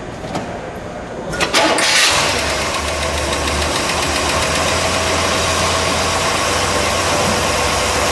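1967 Chevrolet Impala SS's 427 big-block V8 starting: a short crank about a second and a half in, catching at once and flaring briefly, then settling into a steady idle.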